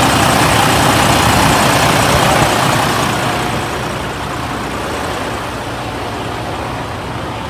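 Freightliner Cascadia's diesel engine idling with a steady, dense rumble, louder in the first three seconds and somewhat quieter from about four seconds in.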